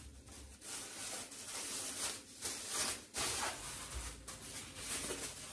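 Thin plastic refrigerator bag rustling and crinkling in short irregular bursts as a watermelon half is handled into it.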